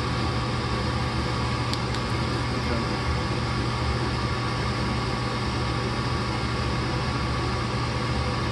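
Furnace blower running with a steady hum while the igniter fails to light, the fault the owner puts down to a bad igniter. Two faint ticks come just under two seconds in.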